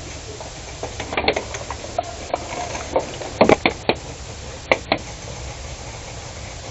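A string of about a dozen sharp, irregular knocks and cracks, clustered between about one and five seconds in, over a steady low background rumble.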